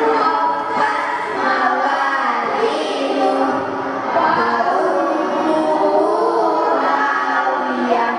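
A group of children's voices singing together in unison.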